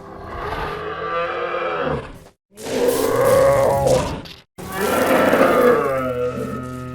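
Sker Buffalo creature sound effect: deep, cattle-like lowing bellows, three long calls in a row separated by two brief silent cuts.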